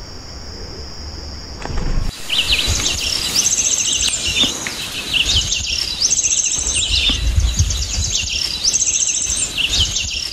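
Insects droning in steady high tones for about two seconds, then a sudden change to a chorus of birds chirping and calling with repeated fast trills until the end.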